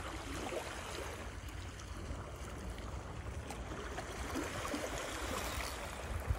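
Steady wash of sea water with a low wind rumble on the microphone, and one short knock near the end.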